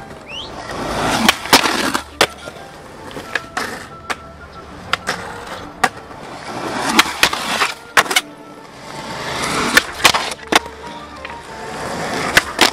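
Skateboard wheels rolling on concrete in several swelling runs, broken by sharp clacks of the board popping and landing on tricks.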